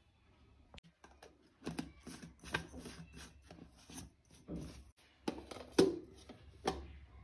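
Irregular knocks and scrapes of kitchen food preparation, about a dozen separate strikes with short gaps, from hard utensils or food being handled on a hard surface.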